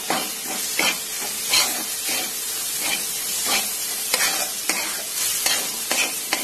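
A metal spatula scrapes and stirs a sizzling ginger, garlic, coconut and green-chilli paste in a metal pan. Sharp scrapes come about twice a second over a steady sizzle.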